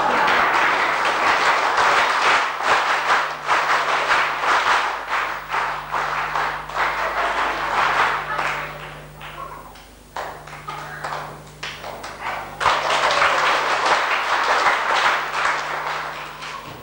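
An audience clapping; the applause fades about ten seconds in, then a second round starts suddenly and dies away near the end. A steady low hum runs underneath.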